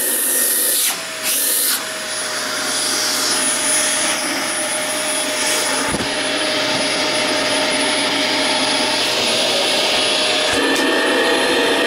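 Dyson DC24 vacuum cleaner running with suction through its hose attachment: a steady motor rush with a high whine. Its pitch shifts about a second in and again near the end.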